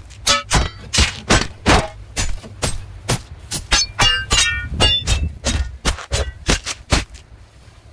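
A rapid run of sharp percussive knocks, about two to three a second, with a few short pitched notes about halfway through.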